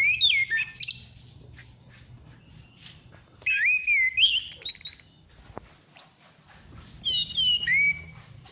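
Female orange-headed thrush singing in three separate phrases. Two of them open with a high whistle sliding down and then drop into lower warbled notes; the middle phrase mixes warbling with a rapid high stutter.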